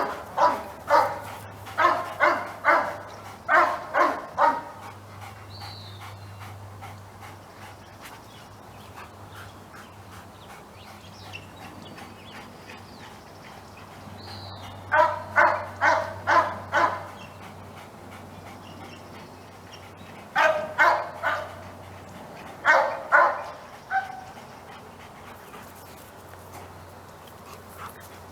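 A dog barking in rapid runs of short barks, about three a second: a long run of about eight barks at the start, then shorter runs of three to six barks about halfway through and near the end, with quiet stretches between.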